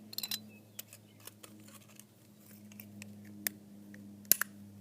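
Scattered sharp clicks and taps of small plastic mouse parts and a circuit board being handled during disassembly, a quick cluster at the start and the loudest click near the end, over a faint steady low hum.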